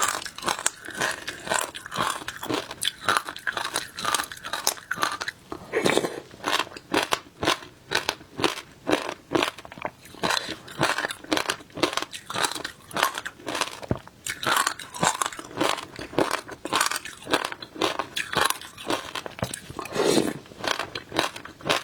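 Frozen passion fruit shaved ice being bitten and chewed close to the microphone: a continuous run of sharp crunches, about three a second.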